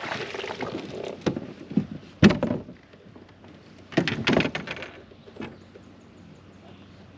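Water splashing as a hooked smallmouth bass is brought alongside a plastic fishing kayak, then a sharp knock a little over two seconds in and a cluster of clunks around four seconds as the fish is landed over the side of the hull.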